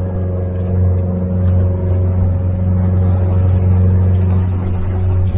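Outboard motor of a MacGregor 26X sailboat running steadily under way, a constant low drone.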